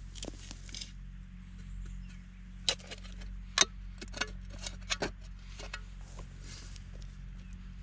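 A handful of sharp knocks and clicks, clustered between about two and a half and five seconds in, over a steady low hum.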